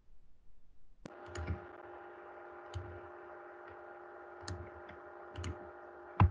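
Computer mouse clicks and light knocks on the desk, about six in all and the loudest just before the end, over a steady low electrical hum that starts about a second in.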